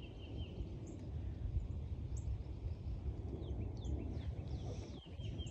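Low wind rumble on the phone's microphone outdoors, with a bird singing a quick trill of short repeated high notes, about five a second, at the very start and again near the end, plus a few scattered brief chirps.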